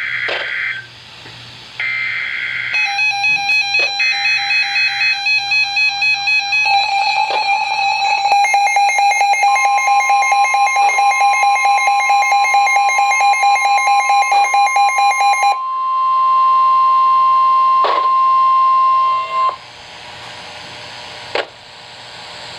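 Emergency Alert System flash flood warning on a weather radio: three short bursts of warbling data tones, then a receiver's rapid pulsing alarm beeps. About nine seconds in they are joined by the steady high warning-alarm tone. The tones cut off near the end into a hiss of radio static, with a few sharp clicks.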